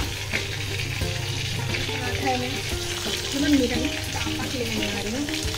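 Flatbread sizzling on a hot iron tawa, a steady hiss, under background music with a wavering, gliding melody that stands out above it.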